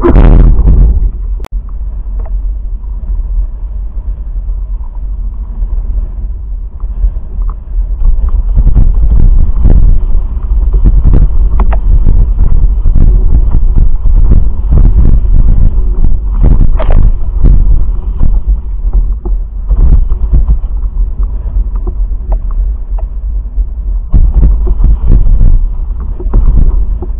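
Wind buffeting the microphone of a camera mounted on a windsurf boom while foiling at speed. It makes a loud, constant low rumble that surges irregularly with gusts and water movement, with a strong rush right at the start.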